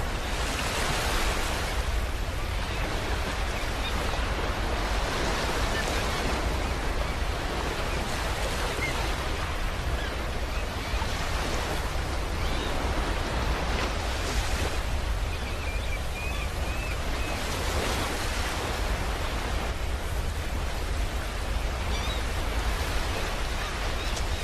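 A steady rushing noise with a deep rumble underneath, swelling and easing every few seconds like surf, with a few faint short chirps about two-thirds of the way through.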